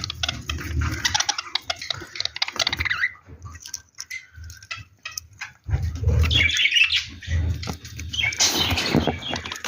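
African lovebirds chirping and chattering, a dense flock of sharp calls, thinning to a few calls in the middle and swelling again, over a low rumble.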